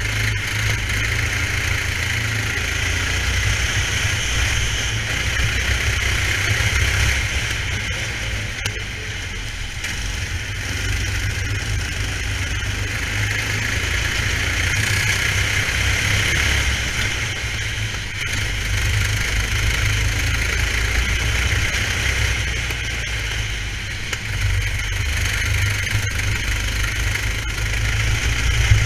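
Racing kart engine running hard through a lap, picked up by an onboard GoPro: a steady low drone under a constant hiss, easing off briefly a few times for corners.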